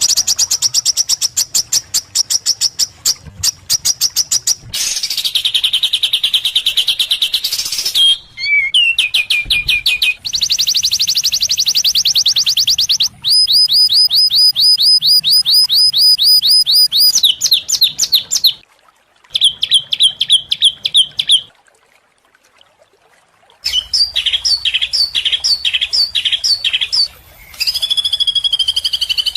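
Edited sequence of different songbirds' songs: rapid strings of high chirps, fast trills and chattering runs. It switches abruptly from one kind of phrase to another, with a short silent gap a little past two-thirds of the way through.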